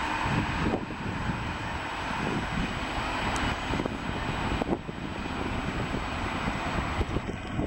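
Electric train running over the rails: a steady rumble of wheels and motor, with scattered clicks and knocks of wheels over rail joints and points.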